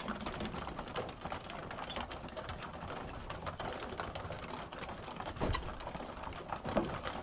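Flock of laying hens feeding, with many small irregular pecking taps and soft, low clucking.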